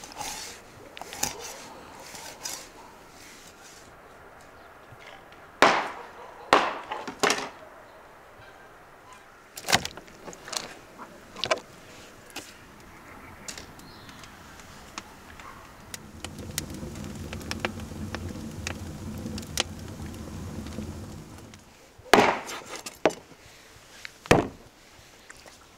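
Large kitchen knife chopping and scoring fish on a wooden cutting board: sharp knocks in three clusters of a few strikes each, with quieter cutting between. A steady low hum from an unseen source runs for about five seconds in the middle.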